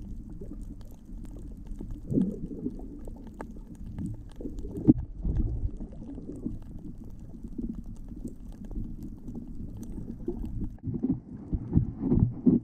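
Muffled underwater sound picked up by a camera below the surface: a low rumbling wash of moving water with irregular louder surges and faint scattered clicks.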